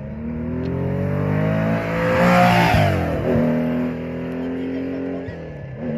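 Classic Porsche 911 rally car's engine accelerating hard as the car passes, its pitch climbing to the loudest point about two and a half seconds in. The pitch then drops sharply as it goes by and upshifts, and there is another gear change near the end as it pulls away.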